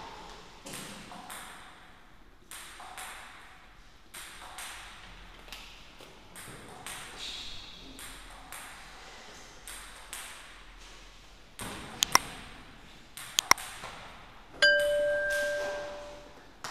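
Table tennis balls clicking and bouncing on tables and the floor in a large hall, in scattered, irregular taps. Near the end come two sharp loud clicks, then a ringing chime that fades over a second or so.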